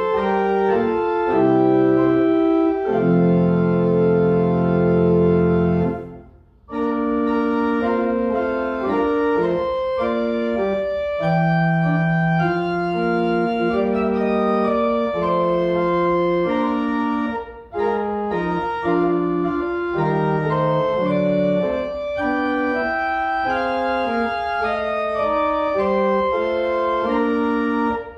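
Church pipe organ playing a slow piece in sustained chords. A long held chord ends about six seconds in, with a short break before the music resumes, and there is another brief pause between phrases later on.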